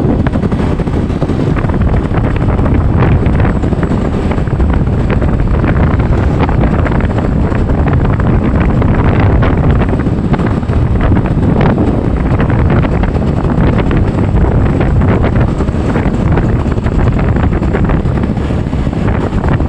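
Wind buffeting the microphone of a vehicle travelling along a road, over a steady low rumble from the vehicle, with many short knocks and rattles running through it.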